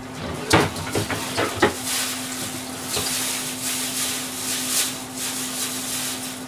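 Kitchen clatter: several knocks and clacks of things being handled in the first two seconds, then a steady sizzling hiss of fish grilling. A constant low hum runs underneath.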